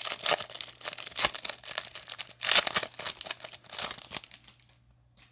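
A foil Match Attax trading-card pack being torn open and crinkled by hand, crackling throughout with a louder rip about two and a half seconds in, then falling quiet.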